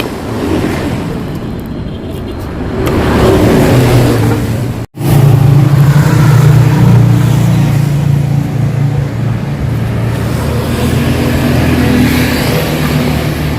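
Yamaha RX-King two-stroke single-cylinder motorcycle engine running through a hollowed-out (bobok) exhaust and being revved. It rises about two and a half seconds in, breaks off sharply for an instant near five seconds, then runs on loud and steady.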